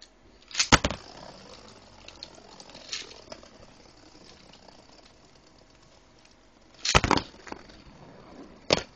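Lego Beyblade spinning tops launched into a plastic stadium: a loud clatter about a second in as they land, then a faint steady whirring hiss of the tops spinning on the plastic. Sharp clacks come about seven seconds in and again near the end as they hit.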